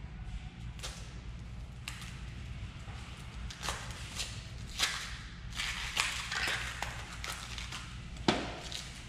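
Gloved hands peeling the dry, papery skin off a red onion: scattered crackles and rustles, busiest in the middle, with one sharper knock near the end, over a steady low room hum.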